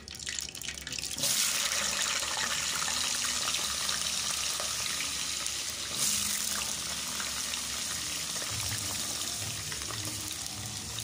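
Hot oil sizzling as handfuls of raw potato strips are dropped into it for frying chips. The sizzle starts suddenly about a second in and jumps louder again around six seconds as more potatoes go in.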